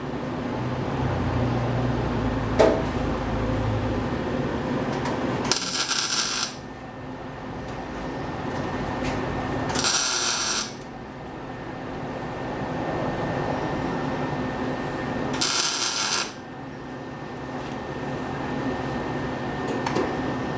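Welder tacking a sheet-metal patch panel into a car fender: three crackling bursts of about a second each, spaced several seconds apart, over a steady hum.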